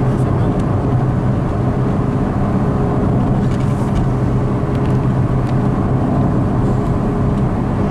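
Steady engine drone and tyre and road noise heard inside a car cruising on a highway, a constant low hum.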